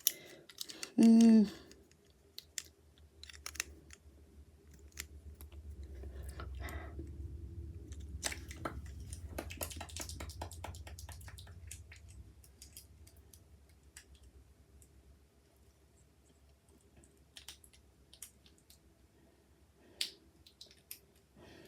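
Plastic Lego bricks handled and snapped together by hand: scattered light clicks, with a low rumble of handling in the middle. A brief hummed voice sound about a second in.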